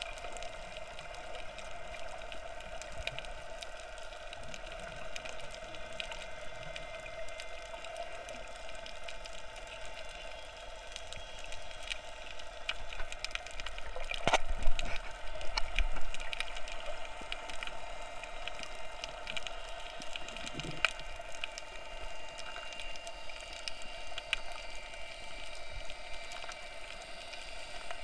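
Underwater ambience picked up by an action camera in its waterproof housing: a steady muffled hum, scattered faint crackling clicks, and a louder rush of water noise about halfway through.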